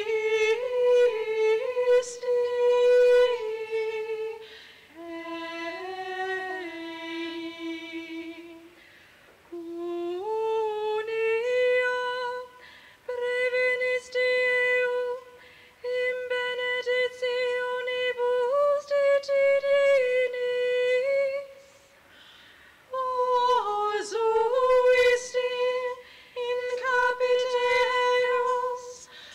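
A single high voice singing unaccompanied, holding slow steady notes that move in small steps, in phrases of a few seconds separated by short breaths.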